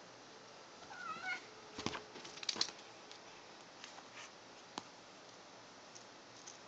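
A domestic cat gives a short chirping meow about a second in, then a quick flurry of clicks and rustling as she plays with a toy, followed by a few single clicks.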